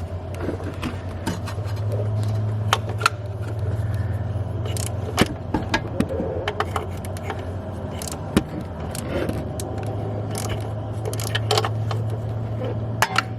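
Ratchet wrench backing a snapped exhaust stud, with a nut welded onto it, out of the turbocharger: irregular metallic clicks and scrapes. A steady low hum runs underneath.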